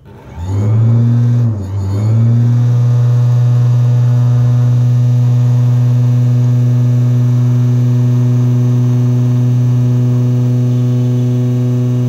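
A 220 V universal motor from a mixer, with a drill chuck on its shaft, switched on at 250 V AC about half a second in. It runs up, dips briefly after about a second and a half, then runs steadily at around 7000 RPM with a loud, even hum and whine.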